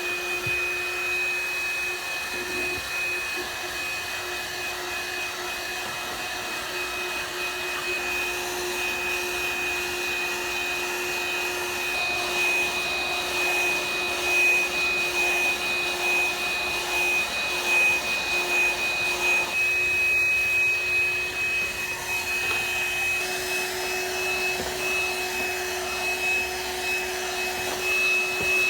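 12-volt corded handheld car vacuum running steadily, with a high, even motor whine over its suction noise. The loudness rises slightly and wavers in the second half.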